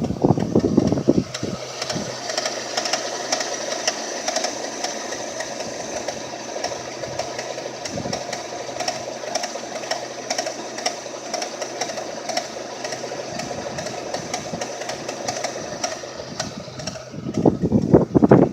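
Renault K4M 1.6 16-valve four-cylinder engine idling with a fast rhythmic ticking from the right-hand side of the engine, a strange noise that apparently occurs only when the engine is cold. Louder low bumps come in about the first second and again shortly before the end.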